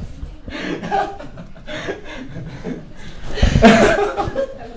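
People chuckling and laughing, with some mumbled voice; the loudest burst of laughter comes a little past the middle.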